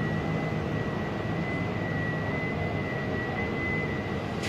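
Steady drone of traffic and vehicle engines, with a thin constant high whine running through it.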